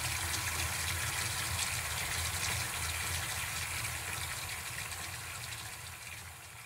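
Ambient background track: steady rushing noise over a low rumble, slowly fading out toward the end.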